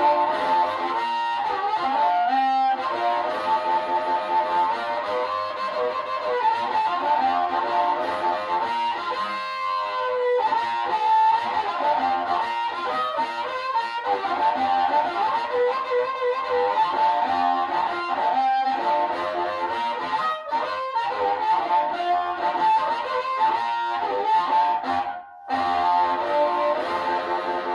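Harmonica played into a 1949 Shure 99A86 controlled-reluctance "Black Label" microphone cupped in the hands and through a Kalamazoo Model 2 amplifier: an amplified harp tone with held and bending notes. The playing breaks off briefly about 25 seconds in, then resumes.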